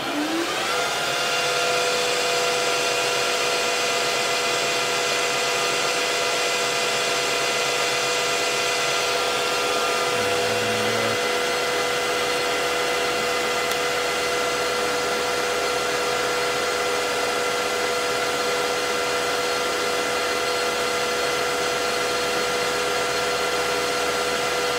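A Precision Matthews PM-1440GT lathe with a VFD-driven motor spins up in its H3 gear range. The whine rises in pitch during the first second, then settles into a steady, even whine of motor and headstock gearing at about 900 RPM.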